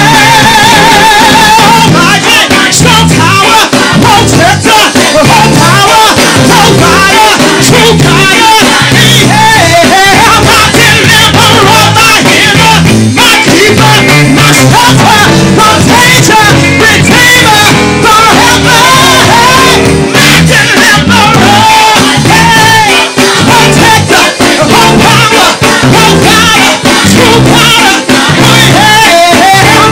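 Loud live gospel praise-and-worship music: voices singing over a band with a steady beat. A single held, wavering note gives way to fuller singing about two seconds in.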